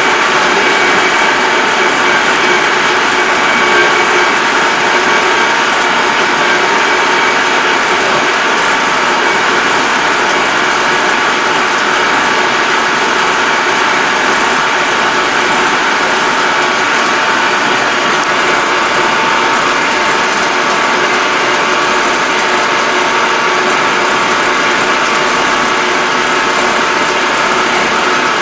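Inside the cab of a 2020 Yanmar YT333 tractor under way: the engine and drivetrain run at a steady pace. A constant mechanical whine sits over the running noise.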